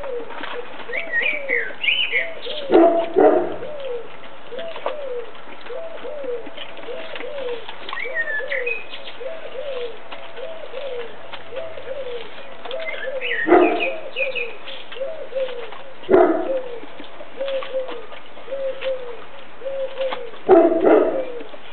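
A pigeon cooing over and over, a steady run of short falling notes, with small birds chirping higher up now and then. A few louder short noises break in, a dog tearing and chewing raw green tripe.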